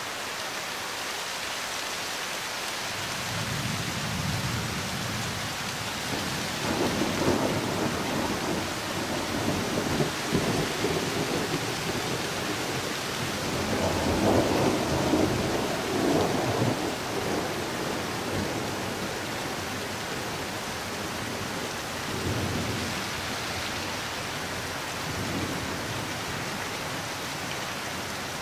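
Thunder rolling over steady rain. A long rumble builds from about three seconds in, swells loudest around a quarter and again around halfway through, then dies away, with a fainter rumble near the three-quarter mark.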